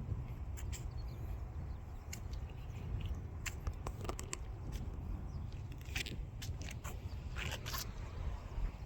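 Wind rumbling on the microphone, with scattered crunching and scraping clicks, more of them from about three and a half seconds in.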